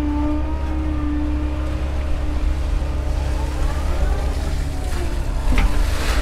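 Doosan excavator's diesel engine running steadily under load, with a hydraulic whine that rises in pitch partway through as the boom and bucket move. A couple of sharp knocks near the end.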